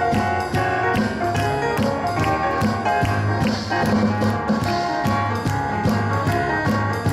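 Keyboard and drum kit playing a boogie-woogie song together, with steady drum beats under sustained keyboard chords and melody.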